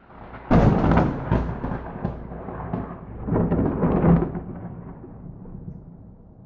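Thunderclap without rain. A sharp crack comes about half a second in, followed by a rolling rumble that surges loud again around four seconds in and then dies away.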